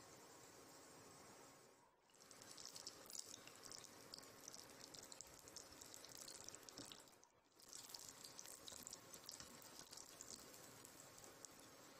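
Batter-coated brinjal bajji deep-frying in hot oil: a faint, steady sizzle with fine crackling. The sound drops out briefly twice, about two seconds and about seven seconds in.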